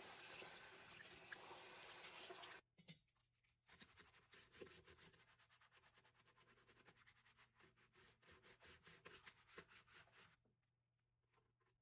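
Faint running water that cuts off after about two and a half seconds, then quick, rhythmic scrubbing strokes as an air conditioner filter mesh is scrubbed with laundry soap, stopping near the end.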